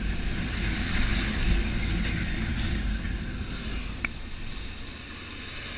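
A motorcycle riding along a road, heard from the rider's camera: steady wind rush on the microphone over engine and road noise, easing a little near the end.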